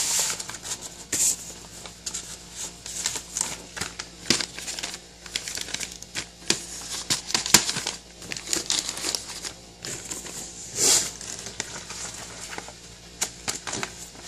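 Mail packaging being opened and handled by hand: crinkling and tearing with scattered small clicks and taps.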